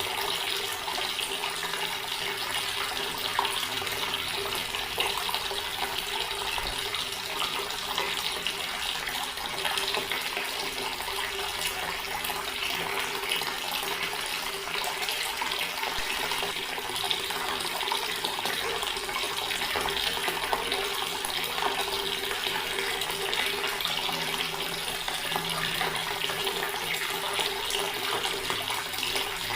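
Water running steadily from a tap and splashing into a stone basin.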